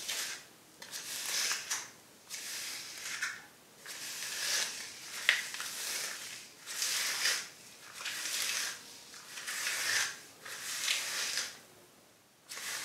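Detangling brush pulled repeatedly down through a section of wet, conditioner-coated natural hair: about a dozen short raking strokes, roughly one a second.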